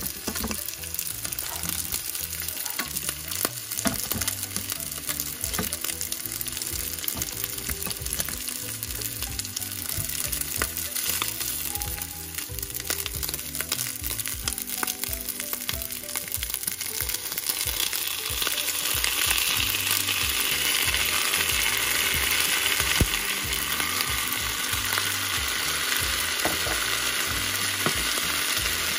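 Cooked rice sizzling in oil in a granite-coated frying pan, stirred and scraped with a wooden spatula. The sizzle grows louder about two-thirds of the way through.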